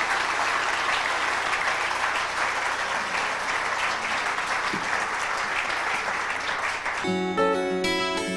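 Audience applauding steadily. About seven seconds in, it cuts off suddenly and music begins.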